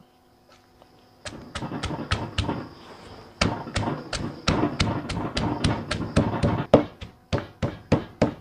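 Wooden pestle pounding whole shallots, garlic cloves, chilies and lemongrass in a granite mortar: a steady run of dull thuds at about four strokes a second, starting about a second in, with a brief pause near the middle. This is the early crushing of the herbs into a curry paste.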